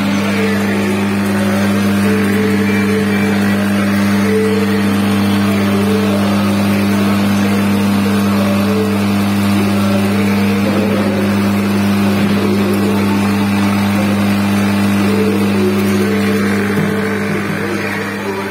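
Electric groundnut roaster running: a steady motor hum under the uneven rattle of roasted peanuts tumbling over stainless steel trays and chutes.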